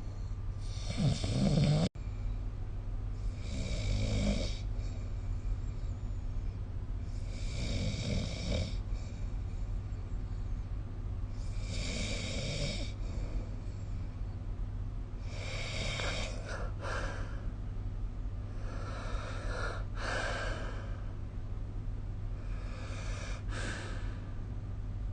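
A person snoring in sleep, about one snore every four seconds, over a steady low hum. The audio briefly cuts out about two seconds in.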